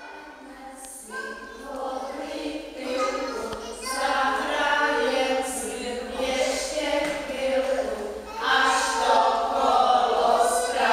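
A group of women singing a song together without instruments, starting softly and growing louder over the first few seconds.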